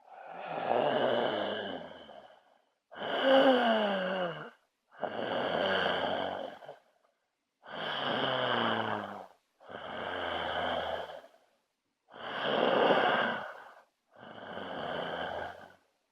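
A person snoring: seven breaths in a row, each one to two seconds long with short silences between them. Several of them drop in pitch.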